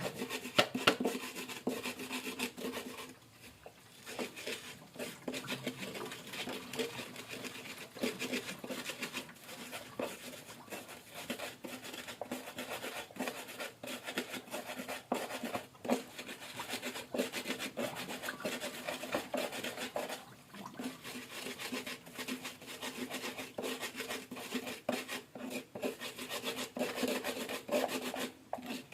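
Hand food-preparation sounds in a kitchen: continuous rasping and scraping with many quick taps, easing off briefly about three seconds in. A steady low hum runs underneath.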